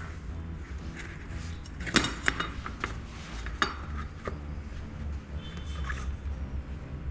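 Light metallic clinks and knocks of bicycle parts and tools being handled during hub-motor wheel work, with a cluster of sharp clicks about two to four seconds in, over a steady low hum.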